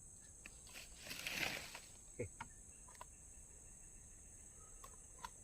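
Faint steady high-pitched drone of insects, with a brief rustle about a second in and a few light ticks.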